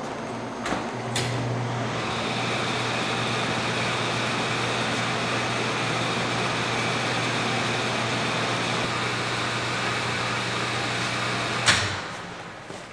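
Two clicks, then the fan of a Blodgett commercial convection oven running with a steady hum. The hum cuts off suddenly near the end with a sharp click.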